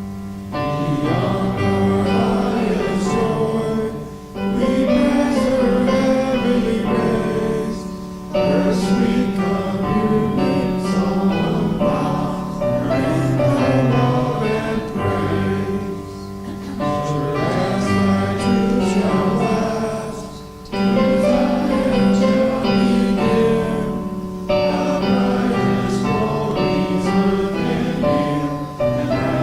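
Congregation singing a hymn in unison with piano accompaniment, in sung lines of about four seconds each with a short breath pause between them.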